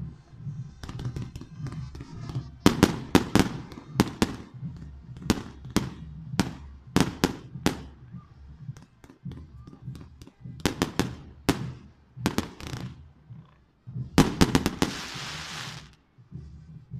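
Fireworks going off: a long, irregular string of sharp bangs, often two or three in quick succession, then a hissing, crackling burst of about two seconds near the end.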